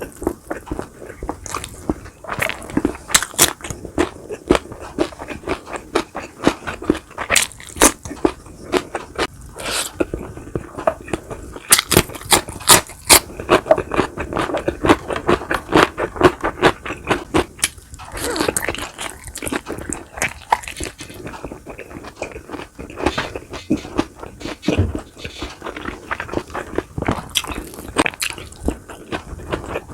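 Close-miked eating of crunchy food: repeated crisp bites, crunching and chewing in an irregular rhythm.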